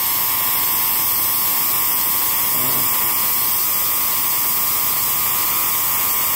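Homemade spark-gap Tesla coil running: its spark gap is firing continuously, charging and discharging, in a loud, steady buzz that does not let up.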